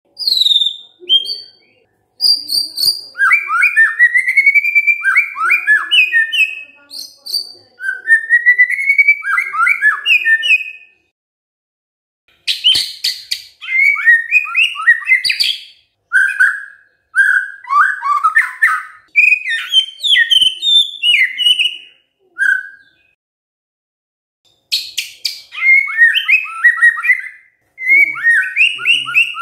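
White-rumped shama singing: phrases of rapid whistled notes sliding up and down, broken by sharp clicking rattles, in long bursts with two pauses of about two seconds.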